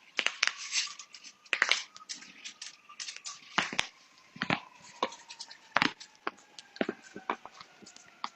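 A person's joints popping and cracking: a string of sharp cracks, unevenly spaced and of varying loudness, with the loudest a few seconds in.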